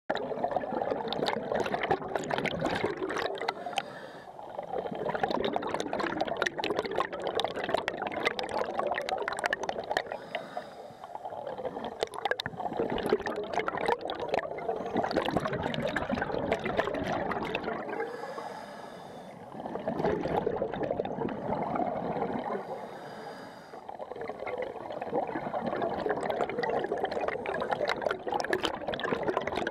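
Scuba diver breathing underwater through a regulator: long stretches of bubbling, crackling exhaust bubbles, broken every several seconds by a short inhale with a faint regulator hiss.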